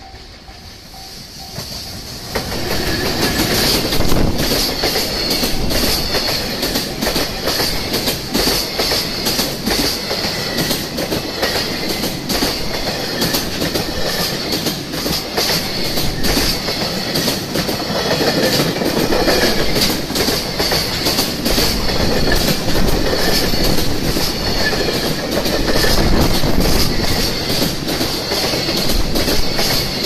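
JR Freight EF210 electric locomotive passing close by, followed by a long train of Koki container wagons. The level jumps about two seconds in as the train reaches the crossing, and the wheels keep up a quick, steady clickety-clack over the rail joints under a constant rushing noise.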